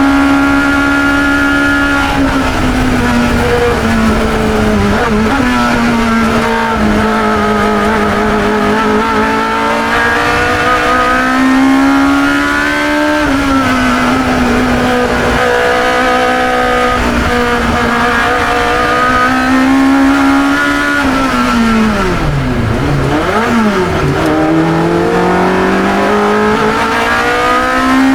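Racing engine of a 1972 Chevron B21 two-litre sports racer heard onboard, running hard at high revs with small dips in pitch at gear changes. About three-quarters of the way through, the revs drop steeply twice as the car brakes and downshifts, then climb again under acceleration.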